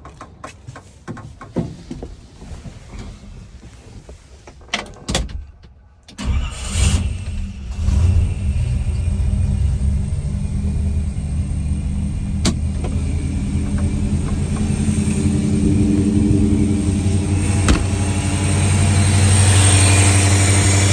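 A 1953 Chevrolet 3100 pickup's 350 V8 cold-started: a few clicks and knocks, then about six seconds in the engine catches, revs up briefly twice and settles into a steady idle, a little louder near the end.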